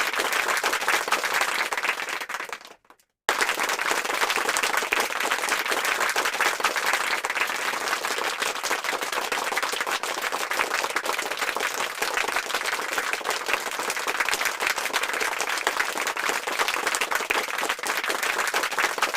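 Audience applause: dense, crackling clapping that fades out about three seconds in. After a brief silence a second stretch of applause starts abruptly and runs on steadily.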